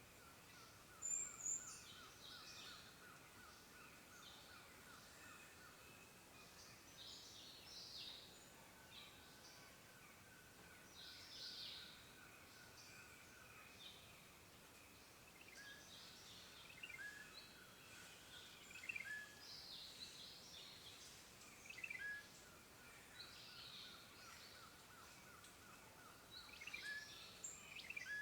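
Several birds calling with short, high chirps and whistles at scattered moments. Under them a fast pulsing trill comes and goes in stretches of a few seconds, over a faint steady high tone.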